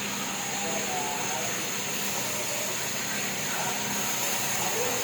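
Sawmill machinery running steadily, a constant whirring hiss with a low hum underneath, with faint voices in the background.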